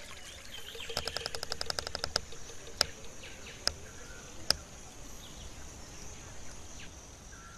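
Tropical forest ambience: insects buzzing steadily at a high pitch. About a second in there is a rapid run of clicks lasting about a second, followed by three single sharp clicks under a second apart.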